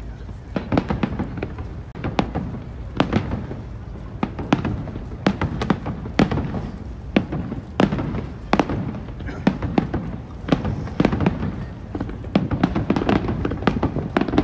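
Aerial firework shells bursting in a rapid, irregular string of bangs, several a second, over a steady low rumble.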